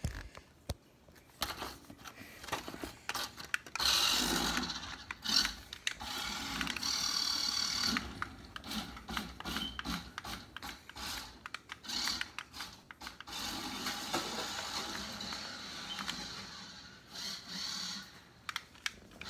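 Toy RC car with all four tires removed, its small electric motor whirring in stop-start spurts while the bare rims scrape and skid across a hard floor.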